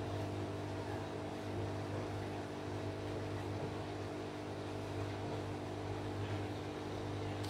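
Aquarium equipment running with a steady hum, an aquarium pump, with air bubbling from an air stone over it.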